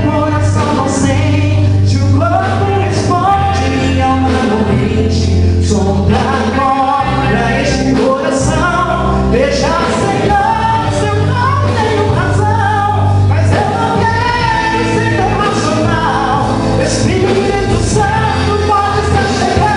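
Gospel band performing a song: voices singing together over bass, drums and keyboard, loud and steady.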